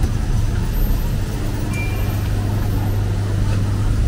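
Street traffic with a heavy vehicle's engine idling close by: a steady low hum that grows stronger after the first half-second, over the general noise of the road.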